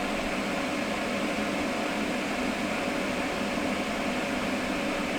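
Van heater running: a steady fan whoosh with a low, even hum.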